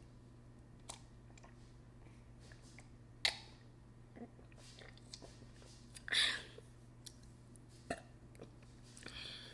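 Someone drinking from a paper cup, with two louder swallowing gulps about three seconds apart and a few small mouth clicks between them.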